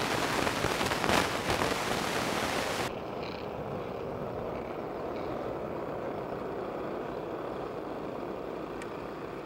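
A pack of 125cc two-stroke racing karts running slowly together on a rolling lap, their engines blending into one steady drone. About three seconds in, the sound changes abruptly as a loud hiss drops away.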